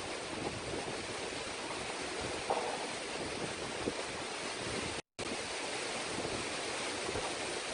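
Cyclone-force wind and rough surf: a steady rushing noise of storm wind and churning sea that cuts out for an instant about five seconds in.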